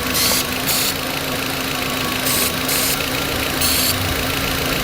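Volkswagen Beetle engine idling steadily while an aerosol can of carburetor cleaner gives five short hissing sprays, in pairs and then one more, at a vacuum leak; the fumes drawn in through the leak are meant to smooth out the rough idle.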